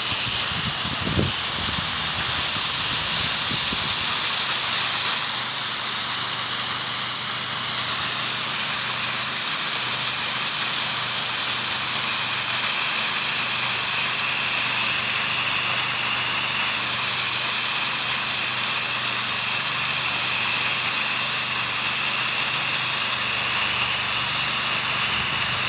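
Pressure washer at work: the steady hiss of the high-pressure water spray over the even hum of the machine's engine.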